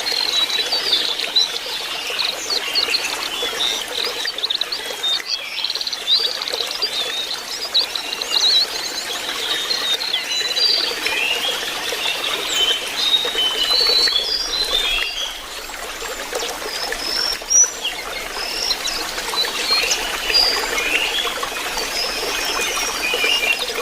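Birdsong of rapid high chirps and short twittering phrases, dense and unbroken, over a steady trickle of running water.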